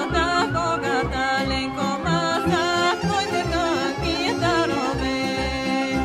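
Bulgarian folk music: a heavily ornamented sung or played melody over instrumental accompaniment, with a steady low beat.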